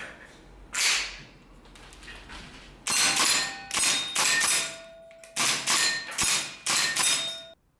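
Shots from a PTS Mega Arms MKM AR15 gas blowback airsoft rifle, fired one at a time at steel targets: one sharp report about a second in, then five or six more from about three seconds in, several of them followed by the short metallic ring of a hit steel plate.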